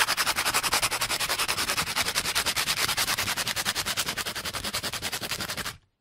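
Sandpaper rubbing over a surface in rapid, very even strokes, about ten a second, that stop abruptly near the end.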